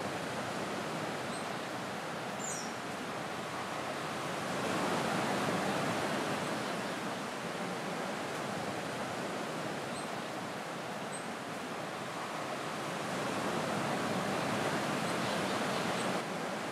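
Steady rush of surf, swelling twice, with a few faint high chirps.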